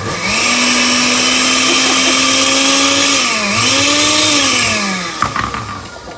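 Countertop blender motor running at speed, blending a thick blueberry smoothie: a loud, steady whine whose pitch dips twice before the motor stops about five seconds in.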